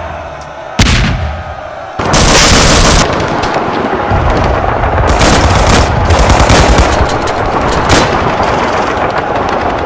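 Gunfire sound effects for a battle: a single sharp shot with a fading tail about a second in, then a loud, heavier burst lasting about a second, then sustained rapid machine-gun and rifle fire.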